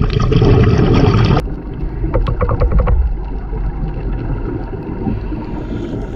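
A boat under way: a steady low engine rumble with wind and water noise. The sound drops abruptly about a second and a half in, and there is a short run of rapid clicks between two and three seconds in.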